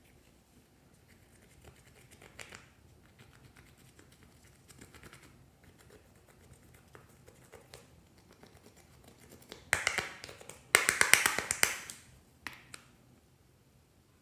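Pressed eyeshadow being scraped and crumbled out of a plastic palette with a stick. Faint scratching at first, then two loud stretches of dense, crackling scratching about ten seconds in, and a single click near the end.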